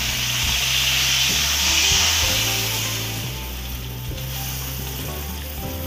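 Lobsters frying in butter in a wok, sizzling as coconut milk is poured over them. The sizzle eases off about halfway through as the liquid cools the pan. Background music plays underneath.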